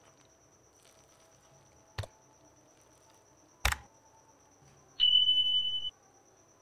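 Subscribe-button animation sound effects: a sharp mouse click, then about a second later a loud single high beep lasting just under a second. A softer click comes earlier, and a faint steady high whine runs underneath.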